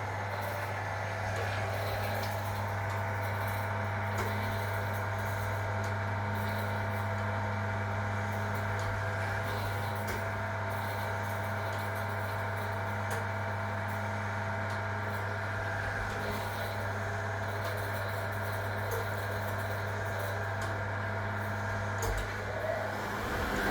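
1961 AEG Lavamat Noris washing machine running with a steady, even mechanical hum; the sound shifts briefly near the end.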